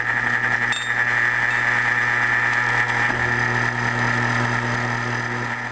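Grizzly mill-drill running steadily, a low hum with a high whine from its head, as its twist drill bit feeds down into a metal plate clamped in the vise to drill a hole.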